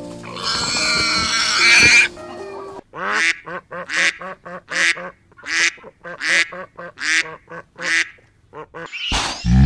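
Waterfowl calling: a series of about eight evenly spaced calls, each rising in pitch and ending in a harsh burst. A loud, deep call starts near the end.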